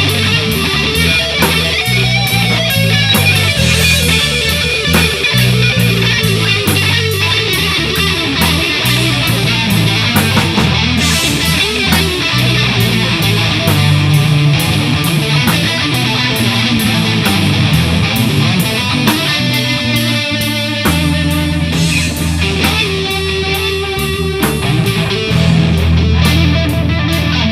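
Live rock trio jamming instrumentally: electric guitar playing over bass guitar and a drum kit keeping a steady beat.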